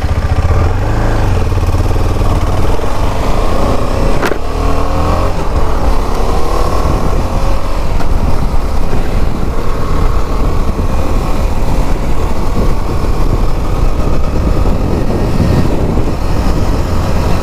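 KTM 250 Adventure's single-cylinder engine pulling away and accelerating, its pitch rising over the first few seconds, with a sharp click about four seconds in. Heavy wind rumble on the microphone runs under it.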